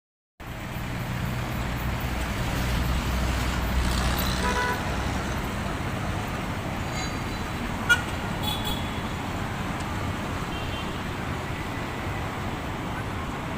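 Road traffic: a vehicle engine running low for the first few seconds, a short horn toot about four seconds in, and one sharp knock about eight seconds in over a steady traffic noise.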